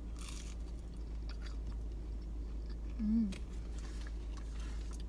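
A person biting into a breaded chicken nugget just after the start and then chewing it, mouth close to the microphone. A short hummed "mm" comes about three seconds in.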